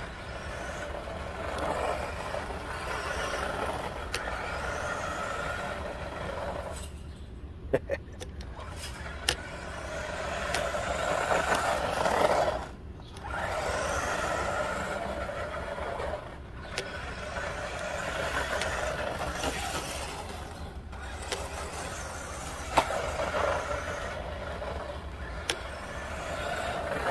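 Croboll RC monster truck's electric motor and gears whining as it drives on asphalt, swelling and easing off with the throttle and dropping out briefly several times. A few sharp clicks or knocks come through.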